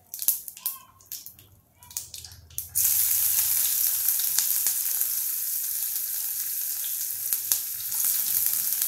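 A few light clicks, then about three seconds in chopped onion hits hot oil in a steel kadhai and starts sizzling all at once, a dense, steady hiss that carries on with occasional small clicks.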